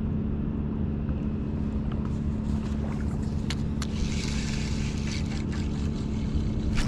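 A boat motor running steadily with a low, even drone. A few light clicks come around the middle, and a hiss joins in about four seconds in as a spinning reel is cast and cranked.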